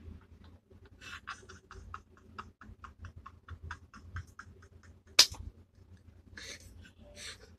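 A woman laughing hard in quick, breathless pulses, about five a second, which trail off into breathy gasps near the end. A single sharp, loud click comes about five seconds in.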